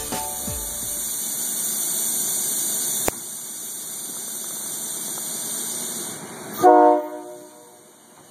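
Silverliner V electric railcar moving slowly past with a steady high hiss, then one short, loud horn blast about two-thirds of the way through.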